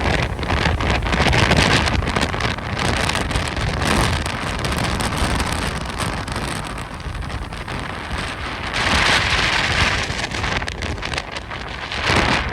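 Strong gusting Santa Ana wind, swelling in gusts about two seconds in, again past the middle and near the end. Wind buffets the microphone with a deep rumble and crackle throughout.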